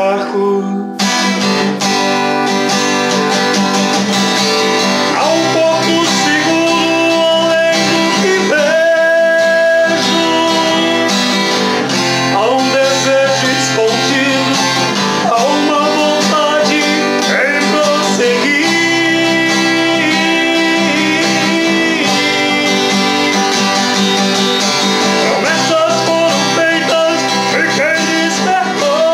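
Acoustic guitar strummed in steady chords while a man sings along.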